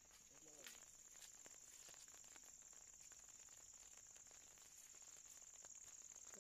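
Faint, steady, high-pitched trill of crickets at night, with scattered light ticks.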